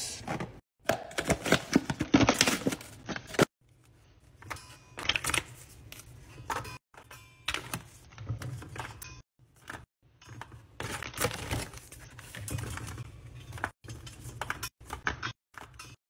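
Cardboard box of plastic single-serve coffee pods being opened, louder in the first few seconds, then irregular clicks and taps as the pods are handled and slotted one by one into a metal wire carousel rack.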